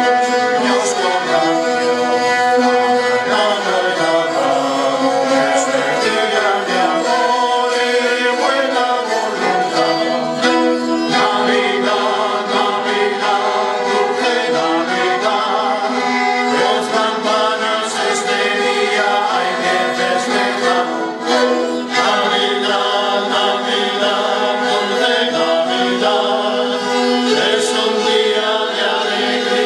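A group of rabels, the traditional three-string bowed folk fiddles of Campoo, played together while the men sing along with them in a folk song.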